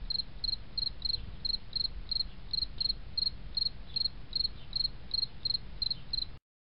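Steady run of short high-pitched chirps, about three a second, like a cricket, over a low hum; it cuts off suddenly near the end.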